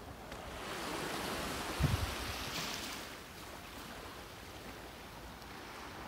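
Small waves washing onto a pebble beach: one swell of surf hiss rises and fades over the first three seconds, then a quieter steady wash. A short low thump comes about two seconds in.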